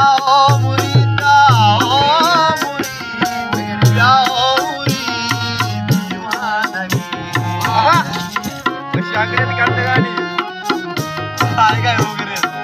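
A man singing a Balochi folk song in phrases over a harmonium's held chords, with a barrel hand drum keeping a steady low beat.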